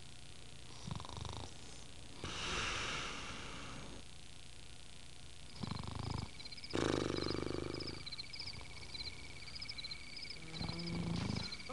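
A sleeping person snoring: several separate snores a few seconds apart, the loudest about seven seconds in. A high steady whistle with repeated high chirps sounds over them from the middle of the stretch nearly to its end.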